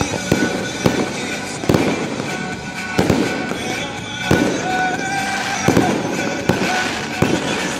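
Fireworks display: a run of sharp bangs from aerial shells and comets, one every second or so, with crackling between them, over music played for the show.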